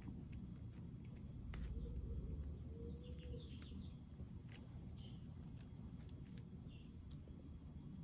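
Faint, scattered ticks of monofilament fishing line being wrapped between the fingers, over a low background rumble, with a few short distant bird chirps.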